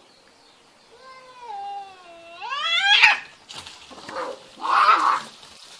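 Domestic cat yowling in a fight standoff: one long drawn-out call that sags, then climbs steeply into a loud screech about three seconds in. Two short, rough, noisy bursts follow.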